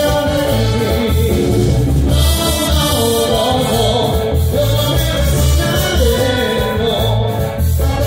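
Municipal orchestra playing a merengue live, with singing over a steady, pulsing bass beat.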